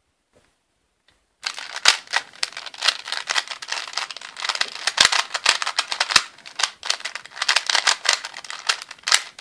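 A 3x3 Rubik's Cube being twisted quickly by hand: a dense, irregular run of plastic clicks and rattles from the turning layers, starting about a second and a half in.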